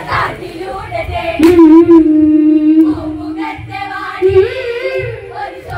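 Women singing a Malayalam Onamkali folk song together, drawing out long held notes. This is the group's sung refrain between the lead singer's lines.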